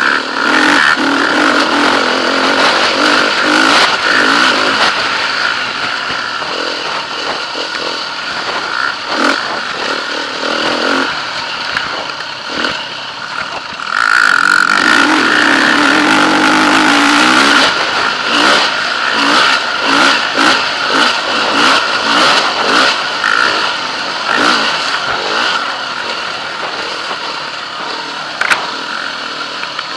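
KTM 350 EXC-F single-cylinder four-stroke enduro engine, revving up and easing off over and over, with one long hard pull about halfway through.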